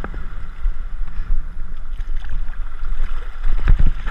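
Seawater sloshing and splashing around a camera held at the waterline, with a low rumble underneath. The splashes grow busier near the end as a hooked tarpon thrashes at the surface beside it.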